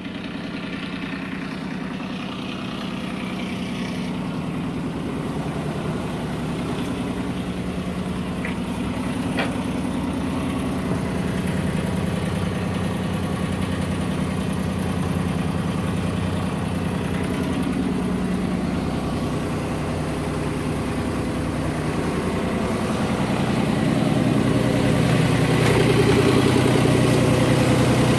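Universal M25-XP three-cylinder marine diesel idling steadily, running on freshly replaced engine mounts, exhaust riser and hump hose. It grows louder over the last few seconds.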